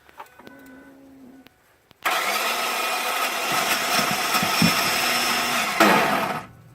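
2005 Ford F-150 5.4-litre V8's starter grinding under the hood as the key is turned: a loud harsh grinding that starts about two seconds in, runs for about four and a half seconds and cuts off, without the engine cranking over. The owner takes it for the starter engaging a little and then disengaging.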